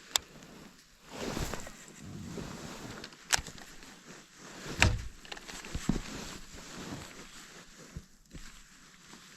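Sharp knocks and clicks of gear being handled aboard a plastic fishing kayak, over a wash of water and wind noise that swells and fades.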